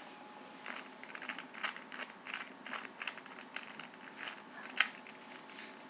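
Plastic Rubik's Cube being turned by hand, its top layer twisted to line up colours: a run of irregular light clicks and clacks, the sharpest one near the end.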